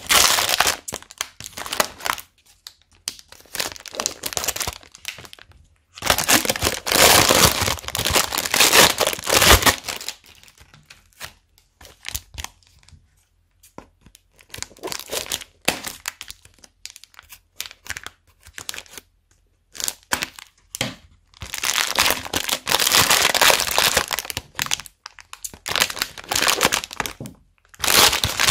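Clear plastic bags packed with foam beads being crinkled and squeezed in the hand, a dense crackling in bursts of a few seconds with short pauses between.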